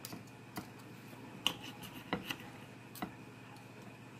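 Steak knife and fork tapping and clicking against a glass plate while cutting slices of tri-tip: a handful of faint, separate clicks.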